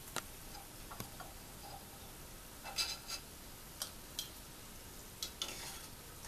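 Gujiya frying in hot ghee in an iron kadai with a steady sizzle, while a long perforated metal skimmer clinks sharply several times against the pan and a glass plate as the fried pastries are lifted out.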